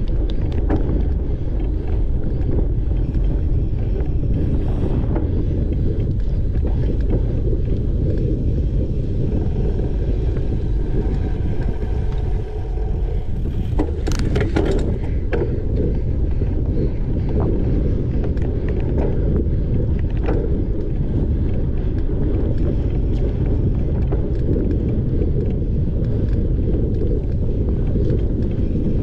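Cyclocross bike ridden fast over grass: steady wind noise on a handlebar-mounted camera mixed with the low rumble of the tyres, with a cluster of sharp rattles from the bike about halfway through.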